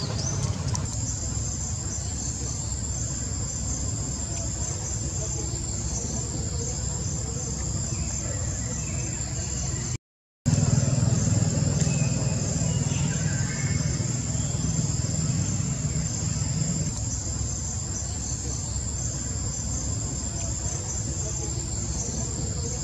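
Outdoor ambience: a steady high-pitched drone of insects over a low rumble. The rumble is louder for several seconds after a short break about ten seconds in.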